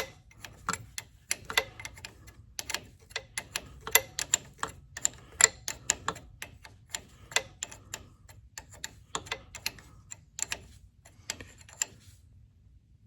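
A wrench clicking against a steel fuel injector line nut on a Case 770 diesel engine as the nut is tightened in short strokes: irregular sharp metal clicks, about two or three a second, stopping about a second before the end.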